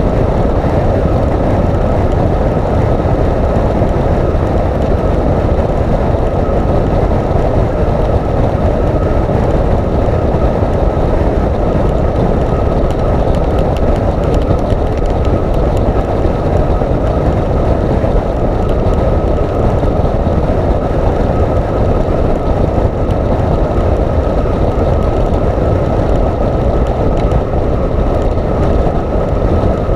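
Motorcycle cruising at highway speed heard from a camera on the bike: a steady rush of wind and road noise over the engine's drone, with a thin steady whine above it.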